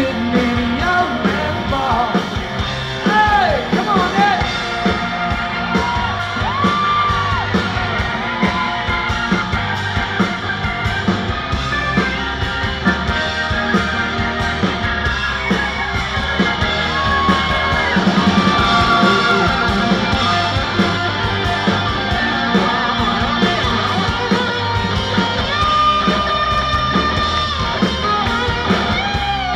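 Live rock band playing: electric guitars, a drum kit and lead vocals, loud and full throughout, heard from within the audience.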